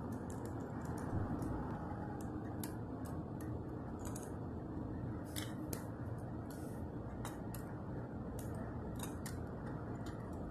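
Small scattered clicks and ticks of a die-cast First Gear toy garbage truck being handled and pushed across a stone-tiled floor, over a steady low rumble.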